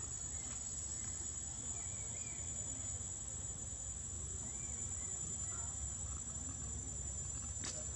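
Steady high-pitched insect drone over a low rumble, with a few faint short chirps and a single click near the end.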